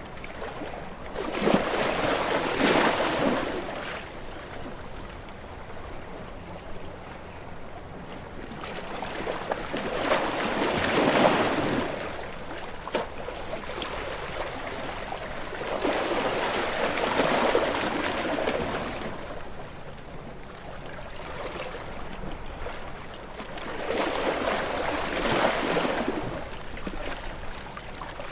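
Ocean waves breaking and washing up the shore, four times, one swell of surf every seven to eight seconds, each fading back to a soft background hush.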